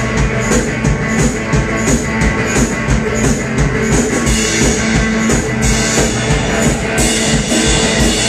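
Rock band playing live, an instrumental passage with drum kit and electric guitar and no singing. A cymbal marks a steady beat about every two-thirds of a second through the first half, and the cymbal wash grows denser from about halfway.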